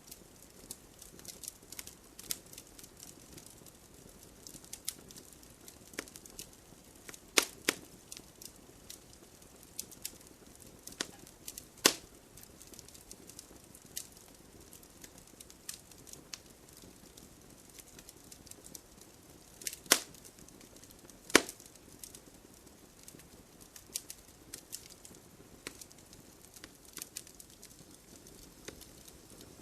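Wood fire crackling, with a steady run of small snapping pops and a few louder sharp cracks now and then.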